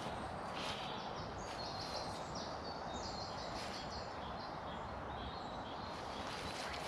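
Steady outdoor background noise with a small bird singing a quick run of short, high repeated notes from about one and a half to four seconds in.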